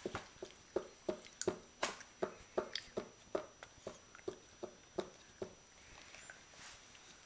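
A baby's hands slapping a plastic high-chair tray over and over, about three slaps a second, stopping about five and a half seconds in.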